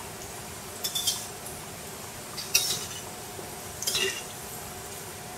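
Long flat metal spatula clinking against a stainless steel frying pan three times, about a second and a half apart, as samosas frying in oil are turned.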